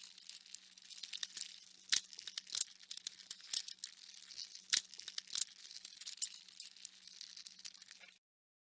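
Colorado potato beetle recorded close up: dense crackling with many sharp clicks, over a faint steady low hum.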